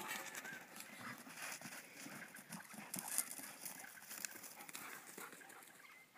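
Faint scuffling and soft irregular paw thuds of two Maremma sheepdog puppies running and tussling on grass.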